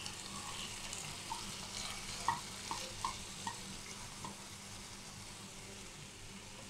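Chopped tomato and onion frying gently in coconut oil in a pan: a quiet, steady sizzle with a few small pops between about one and four seconds in.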